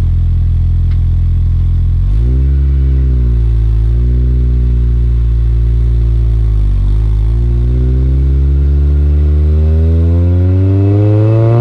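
2004 Acura RSX Type-S's 2.0-litre four-cylinder running through an Invidia Q300 exhaust under acceleration. The engine note holds steady for about two seconds, then climbs, dips briefly about seven seconds in, and rises steadily again toward higher revs.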